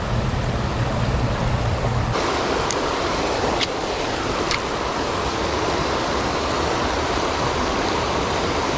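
River water rushing steadily, its hiss turning brighter about two seconds in. Three short ticks come about a second apart a few seconds in.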